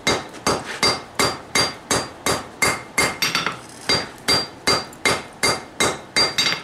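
Hammer blows on hot steel over an anvil in a steady rhythm of about three strikes a second, each with a short metallic ring from the anvil. This is forging the billet down, bringing its sides down and squaring it off.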